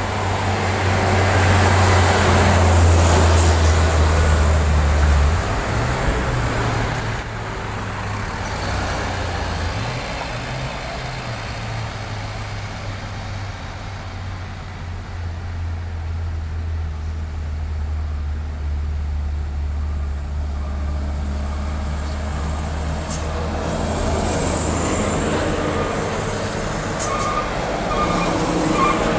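Heavy diesel vehicles on a steep road: a low, steady engine drone from trucks and a bus, loudest for the first five seconds as a truck drives past close by, then swelling again through the middle as another heavy vehicle goes by.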